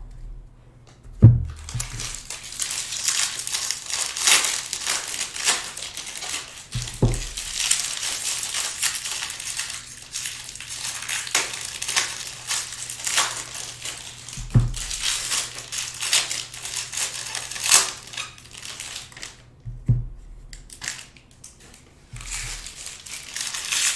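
Crinkling and tearing of foil trading-card pack wrappers as packs are ripped open and cards are handled, with a few dull knocks.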